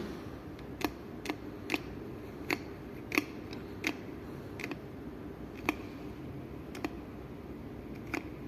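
About a dozen sharp clicks at uneven intervals, roughly one every half second to a second, from oil being dispensed into the fill holes of a hydraulic door closer.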